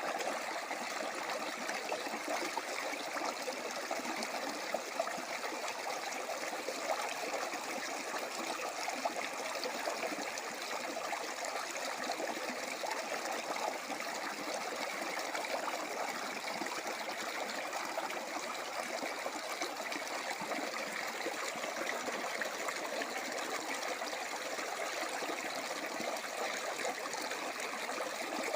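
Running water, a steady, continuous flow with a fine splashing, trickling texture.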